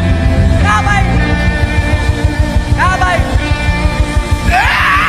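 Gospel worship music with a heavy, steady low beat, with two short sliding sung cries about a second in and around three seconds, and a sound that rises and holds high near the end.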